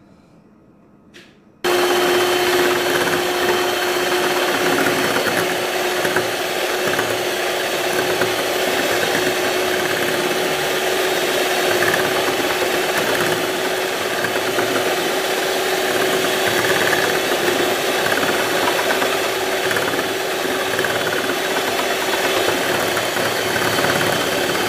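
Electric hand mixer switched on about a second and a half in, running at a steady speed with a constant motor hum as its beaters whip cake batter and oil in a glass bowl.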